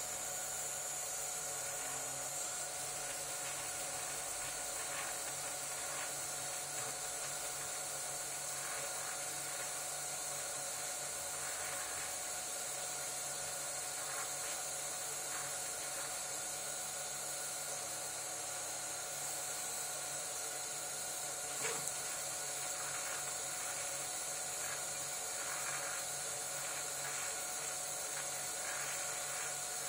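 Desktop 3D printer running a print: steady whine from its motors over a high, even hiss, with faint ticking and one sharp click about two-thirds of the way through.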